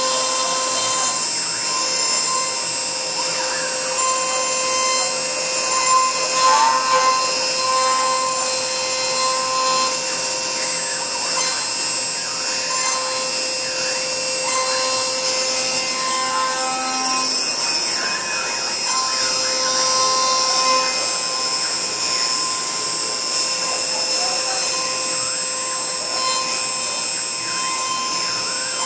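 Spindle of an ezRouter Scorpion CNC router running at speed with a steady high whine as its long bit carves a large three-dimensional workpiece, the cutting noise varying slightly as the bit moves.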